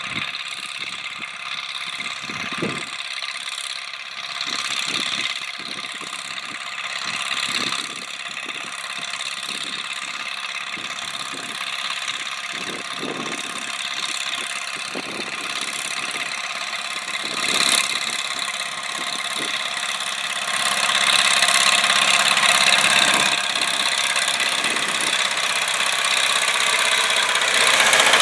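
MTZ-82 tractor's four-cylinder diesel engine running steadily under load while cultivating, growing louder over the second half as the tractor draws near.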